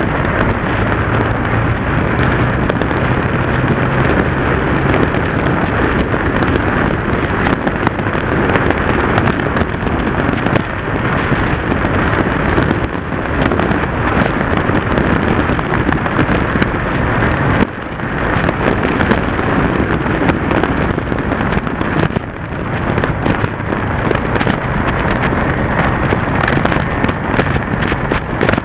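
Heavy wind noise buffeting the microphone of a motorcycle-mounted camera at road speed, with a Yamaha TDM's parallel-twin engine running underneath. A steady engine hum stands out in the first few seconds, and the noise dips briefly twice in the second half.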